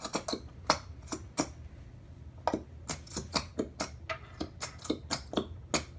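Plastic glue bottle being squeezed hard, giving a string of sharp, irregular clicks and crackles as thick green glue is forced out of its nozzle.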